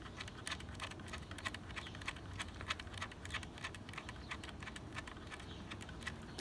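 Small nut being spun on by hand onto a bolt of an electric fan shroud's mounting bracket, making a steady run of light, irregular metal clicks.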